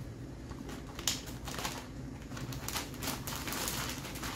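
Crinkling and rustling of a plastic bag as small items are handled and packed into it, with irregular light clicks and taps and one sharper click about a second in.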